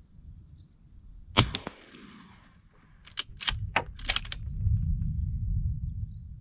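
A single suppressed 300 Blackout pistol shot about a second and a half in, with a short echo trailing off. About two seconds later come a few sharp clicks, followed by a low rumble.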